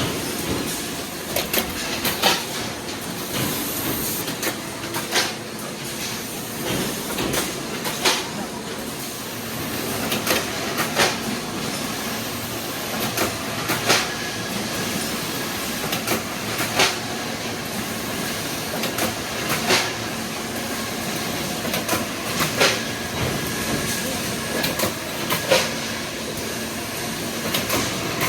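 Automatic can body welding machine running: a steady mechanical clatter with a sharp clack about every three seconds.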